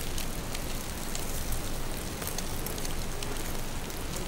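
Beaten egg sizzling in hot oil in a frying pan as an omelette cooks: a steady crackling hiss with many small pops.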